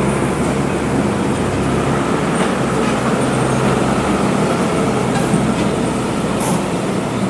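City road traffic with a vehicle engine running steadily close by, a low even hum under the noise.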